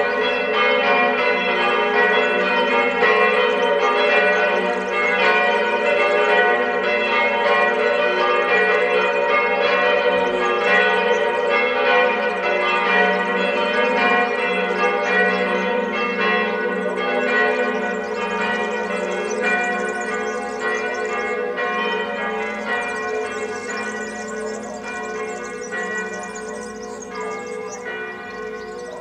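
Church bells ringing, several bells sounding together in a dense, overlapping peal that slowly dies away over the last ten seconds or so.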